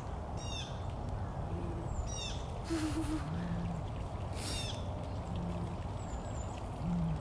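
Wild birds calling: small groups of short, falling chirps every couple of seconds, with a few brief low hoot-like notes, over a steady low rumble.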